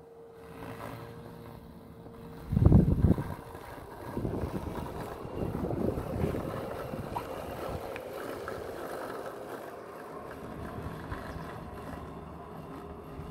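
Gardena Smart Sileno Plus robotic lawn mower running on grass, a faint steady hum largely covered by wind buffeting the microphone, with a strong gust about two and a half seconds in.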